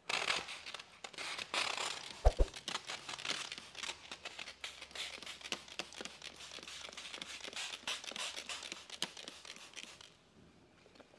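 Wet sheet of paint protection film crinkling and rustling as it is handled and lifted off the bumper, with one loud thump about two seconds in.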